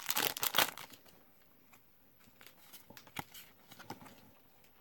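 Foil booster-pack wrapper crinkling as the cards are pulled out of it, in about the first second, then a few faint, short taps of the cards being handled.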